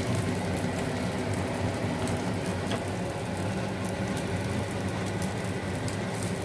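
Vermicelli pancakes sizzling and crackling in hot oil and ghee on a flat pan, over a steady low hum.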